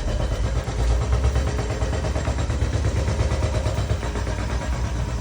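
An engine running steadily, slightly louder about a second in.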